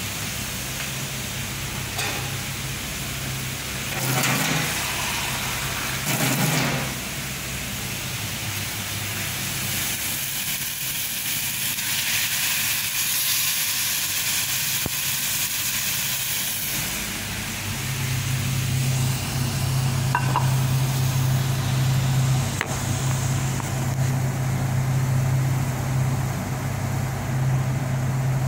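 Sliced bitter gourd and potato sizzling as they fry in a pan, with a couple of brief bumps about four and six and a half seconds in. A steady low hum comes in a little past the middle and carries on under the sizzle.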